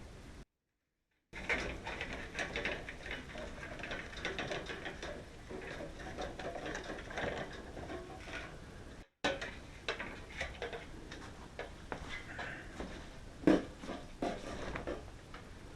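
Irregular clicks, taps and light clatter of small hard objects being handled, with rustling between them. The sound drops out to dead silence twice, briefly after the start and for an instant about nine seconds in.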